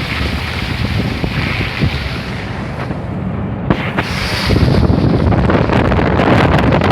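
Heavy rain and water noise with wind buffeting the microphone, a dense rushing hiss that grows louder about two-thirds of the way in.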